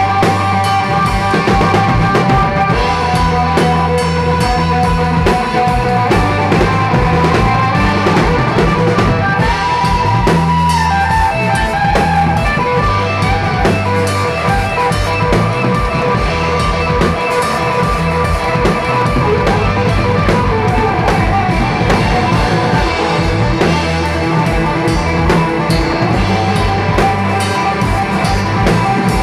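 A live band plays an instrumental passage: a Ludwig drum kit with Zildjian cymbals keeps a steady beat under guitar and low bass notes, and a held guitar note bends about ten seconds in.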